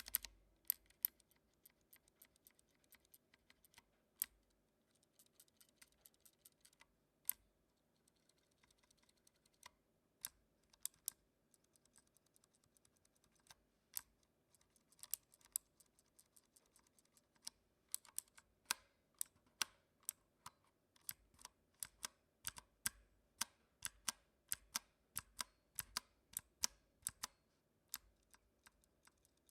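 WhiteFox mechanical keyboard with clicky Kailh Blue switches, lubed stabilisers and foam in the case, being typed on. Sharp separate key clicks come at an uneven pace, sparse at first and quicker and denser from about halfway through.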